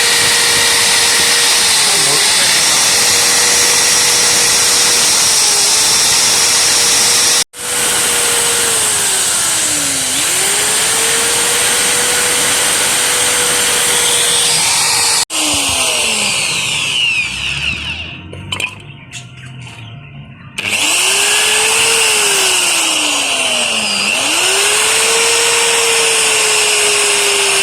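Hand-held power tool running at high speed with a steady motor whine. The pitch sags again and again as the tool is pressed into the work, then climbs back as the load comes off. It breaks off sharply twice and drops away briefly about two-thirds of the way through.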